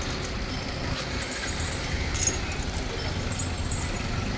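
Steady road traffic noise: a low, even rumble of passing vehicles.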